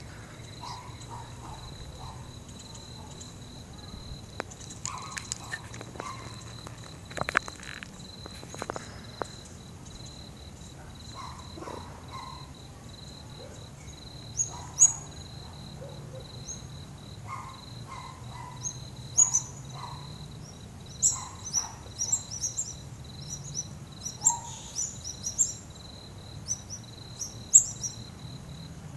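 Evening outdoor ambience: a cricket chirping in a steady, continuous high trill, with short, sharp bird chirps from about halfway through that come more often toward the end, over a low distant hum. No thunder is heard.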